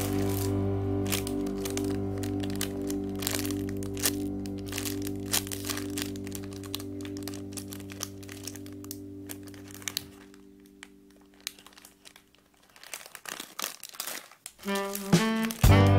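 Background music that fades away about two-thirds of the way through, with crinkling and crackling of plastic packaging as packaged squishy toys are handled. The music starts again just before the end.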